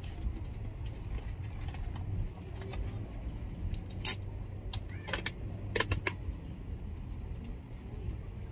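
Handling noise as a full-face motorcycle helmet is pulled on and its chin strap is fastened, with a few sharp clicks: the loudest about four seconds in, then a quick cluster a couple of seconds later.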